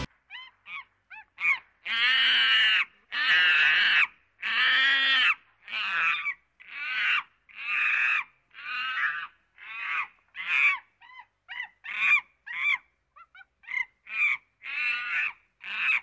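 Monkey calling over and over, about one call a second. Each call is loud and has several arching pitch lines, and short, fainter chirps come in between. The longest and loudest calls fall early on, in the first third.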